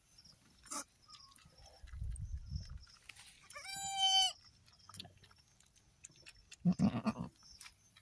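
A newborn goat kid bleats once, a high, even call of under a second, about four seconds in. Soft rustling comes from the grass and handling around it.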